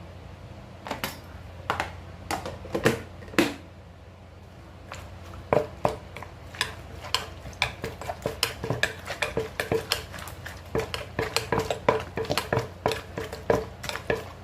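Pestle pounding ingredients in a mortar for a Thai pounded salad. A few scattered knocks come first, then from about five seconds in a steady pounding of two to three strikes a second.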